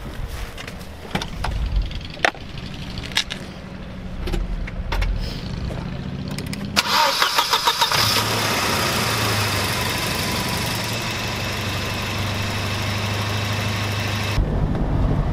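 Volvo's engine cranked by the starter for about a second, then catching and settling into a steady idle. It starts once a broken wire to the flywheel speed sensor, which had been making it die, has been found and repaired. Before the start there are scattered knocks and handling noises, and near the end a louder, deeper drone takes over.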